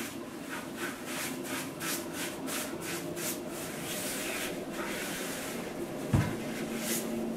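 Paintbrush bristles stroked briskly back and forth along the underside of a pine bed slat, a rhythmic brushing of about three strokes a second. A single knock sounds about six seconds in.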